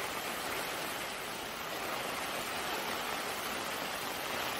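Heavy rain falling steadily, an even hiss with no distinct drops or knocks.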